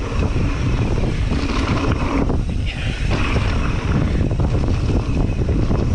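Wind buffeting the microphone over the rumble of mountain bike tyres on a dirt trail, with the bike rattling over bumps.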